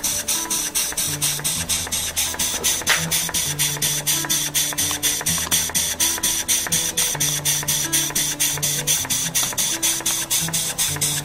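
Small live-steam model horizontal engine running steadily, its exhaust puffing about five times a second over a steady hiss of steam.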